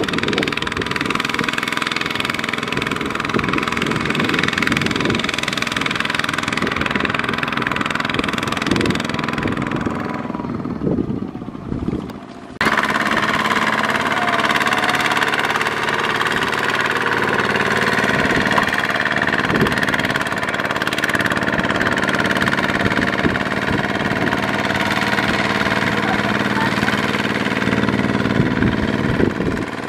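Kubota ZT155 power tiller's single-cylinder diesel engine chugging steadily while it pulls a loaded trailer through mud. The sound sags about ten seconds in, then comes back abruptly and louder a couple of seconds later.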